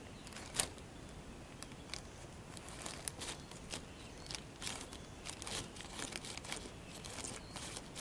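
Scattered soft crackles and crinkles, irregular and unevenly spaced, from a Japanese skink feeding on a cicada while lying on a crumpled plastic sheet.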